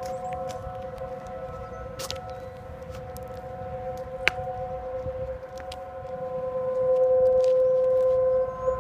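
Several outdoor tornado warning sirens sounding a steady tone together at different pitches, during a siren test. The sound swells louder about two-thirds of the way in as the nearer rotating siren turns toward the listener. A couple of sharp clicks are heard about two and four seconds in.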